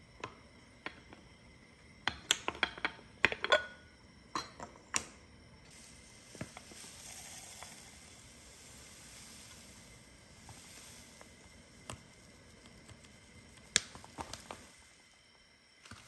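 Kitchen handling sounds: a cluster of sharp clicks and knocks from about two to five seconds in, then a faint steady hiss, and a few more clicks near the end.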